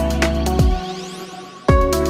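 Electronic background music with a steady kick-drum beat; the bass and drums drop out for about a second with a rising sweep, then the beat comes back in near the end.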